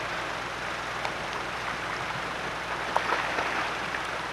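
Steady rush of a shallow river running over stones, with a few sharp splashes about three seconds in as an Atlantic salmon is tailed by hand in the water.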